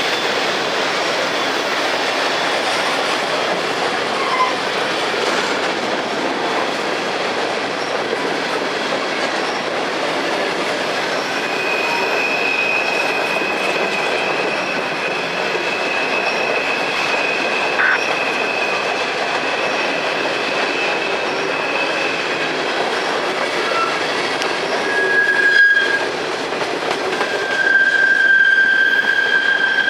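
Freight cars of a slow train of empty coal hoppers rolling past, wheels clacking steadily. A high wheel squeal holds from about twelve seconds in for ten seconds, and a lower one starts about five seconds before the end.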